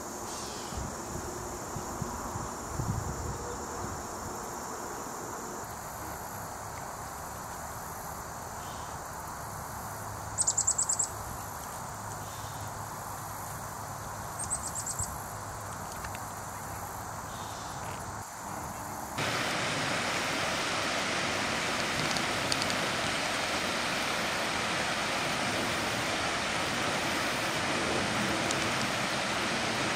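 A steady high insect drone, broken twice by a short, very high rapid trill. About two-thirds of the way through it cuts to the louder, steady rush of a shallow stream running over rocks.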